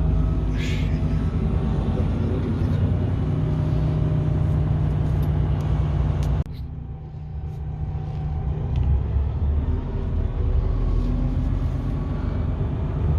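Inline-six diesel engine of a Mercedes-Benz Arocs 4142B concrete mixer truck running steadily with a low hum while the truck is driven. About halfway through, the sound drops off suddenly and then slowly builds again.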